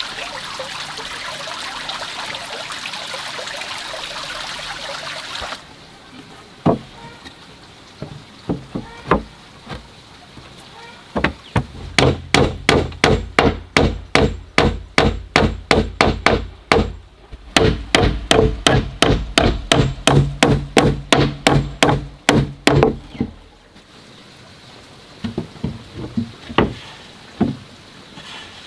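Hammer driving nails into wooden planks: a few scattered taps, then two long runs of rapid, even blows, about four a second, with a short pause between them, and a few more taps near the end. A steady rushing noise fills the first few seconds and stops suddenly.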